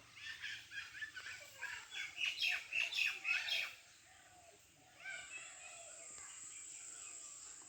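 Birds chirping in a quick run of short, repeated calls that grow louder before stopping a little under four seconds in. About five seconds in, a steady high-pitched buzz begins and carries on.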